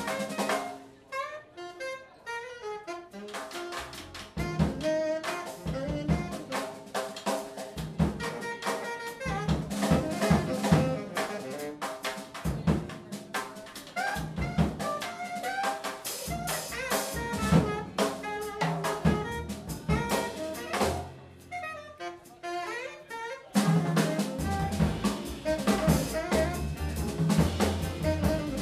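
Live jazz band playing: saxophone leading the melody over upright bass, drum kit and keyboard. About three-quarters of the way through the band gets louder and fuller, with a heavier bass.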